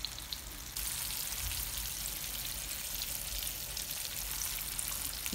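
Mackerel fillets frying in hot vegetable oil in a pan: a steady, hissing sizzle that jumps louder about a second in.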